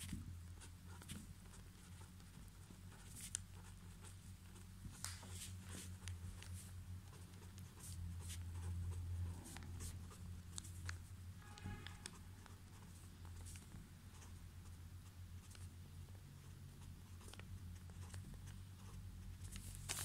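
Pen writing and drawing on lined paper: faint irregular scratches and light taps of the pen tip, over a steady low hum.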